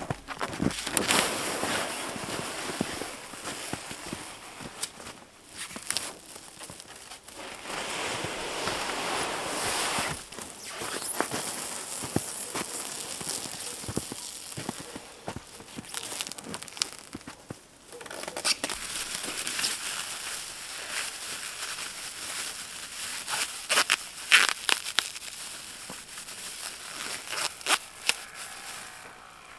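Plastic stretch film being unrolled and pulled taut around a wooden frame, crinkling and crackling in uneven stretches, with a few sharp crackles near the end.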